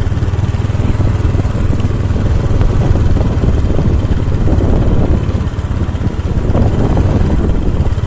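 Motorcycle engine running steadily while riding along a narrow, bumpy dirt footpath, with wind rumbling on the microphone.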